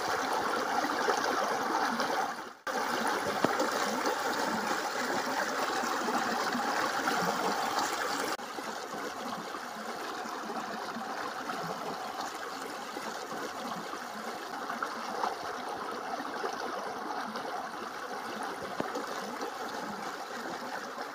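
Shallow muddy water flowing over sand in a steady rush and trickle. It cuts out for a moment about two and a half seconds in and runs on more quietly after about eight seconds.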